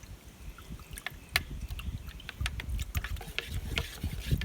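Wind buffeting the microphone in an uneven low rumble, with scattered light clicks and taps throughout.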